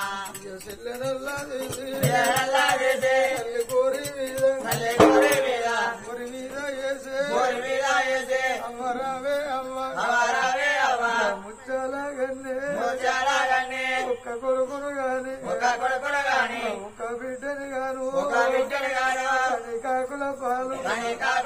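Oggu Katha folk singing: one voice sings a wavering, ornamented melody. A couple of sharp strikes sound in the first few seconds.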